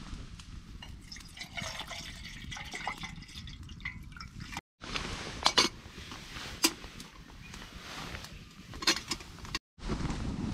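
Water poured from a plastic bottle into a titanium cook pot, a filling sound for about four seconds. Then a few sharp metallic clinks as the pot's lid is closed and its folding handles raised.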